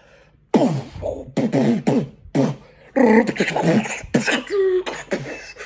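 A man's voice making wordless, beatbox-style mouth sounds and pitched vocal noises in short bursts, starting about half a second in.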